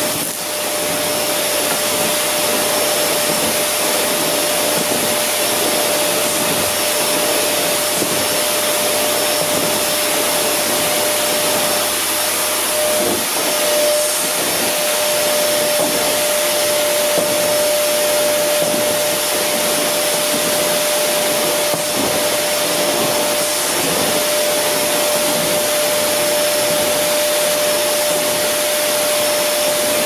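Vacuum cleaner running steadily: a loud, even rushing hiss, strongest in the high register, with one steady tone humming inside it.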